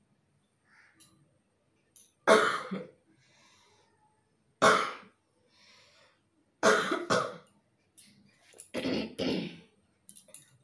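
A person coughing deliberately in short bouts: two single coughs, then two double coughs. The throat has gone hoarse from the long stretch of coughing.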